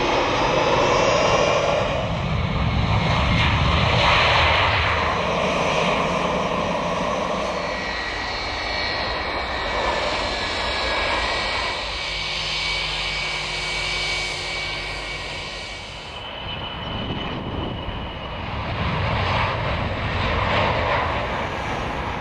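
Jet airliners' turbofan engines passing one after another: a Boeing 737 on landing approach, then an Airbus A320 rolling along the runway. A steady jet noise with a high fan whine over a low rumble swells and fades as each aircraft goes by, and changes in character at the cuts between aircraft.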